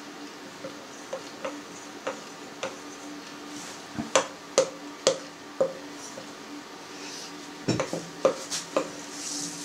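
A spoon clinking and scraping against a ceramic bowl while stirring flour into sourdough batter to form bread dough: irregular clinks, loudest in bunches about four seconds in and again near eight seconds.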